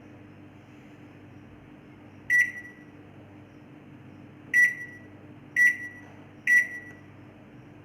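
Microwave oven beeping four times: one short, high beep, then after a pause three more in quick succession, over a steady low hum.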